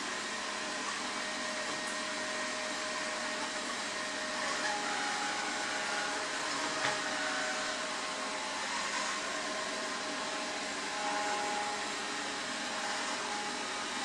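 Aiibot V9S robot vacuum cleaner running steadily on a hard floor: a continuous whir from its brushless suction motor with faint steady whining tones, and a short click about seven seconds in.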